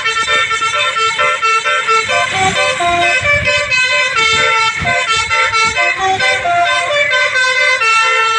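A tour bus's telolet basuri horn playing a fast melody, one short note after another without a break, with road rumble underneath.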